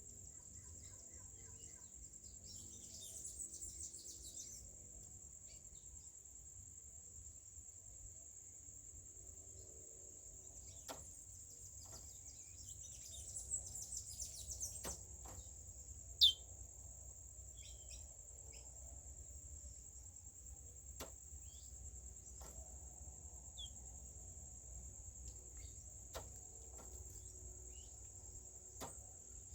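Steady high-pitched insect drone with scattered short bird chirps over it; the loudest is a single sharp falling chirp about halfway through. A few faint clicks are heard now and then.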